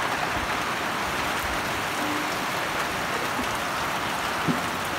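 Heavy rain falling steadily onto puddled ground and foliage, an even continuous hiss.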